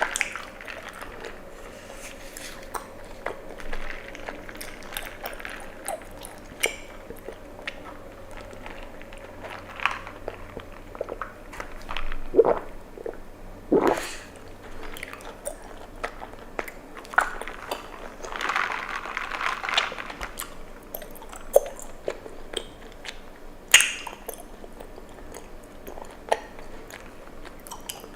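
Close-up mouth sounds of drinking bubble tea: chewing of tapioca pearls with many sticky, wet clicks, and a few longer gulps.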